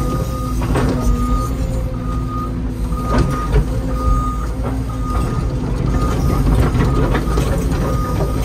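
Excavator's travel/backup alarm beeping steadily, about one beep a second, over the diesel engine running, heard from inside the cab.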